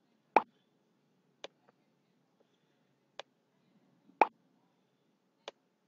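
Computer mouse button clicks: five separate clicks, two of them loud, one shortly after the start and one about four seconds in, with fainter ones between and near the end.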